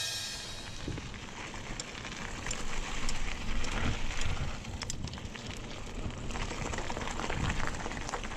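A GT Aggressor Pro mountain bike's tyres rolling over wet pavement and then gravel: a steady crackling hiss with scattered small clicks, swelling for a couple of seconds early in the ride.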